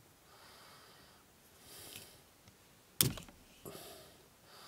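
A plastic wiring-harness connector being pried open with a flat screwdriver: its cover snaps off with one sharp click about three seconds in, followed by a smaller click. Faint soft handling noise before it.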